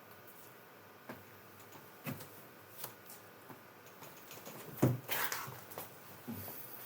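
Handling noise: scattered light clicks and knocks, with a louder thump about five seconds in followed by a brief rustle.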